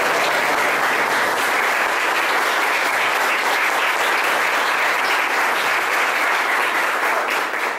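A church congregation applauding steadily, acclaiming the Gospel just proclaimed. The clapping fades out near the end.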